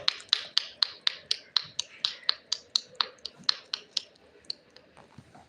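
Rapid, even finger snapping, about four to five snaps a second, growing fainter and stopping near the end, as a beat to get a pet parrot to dance.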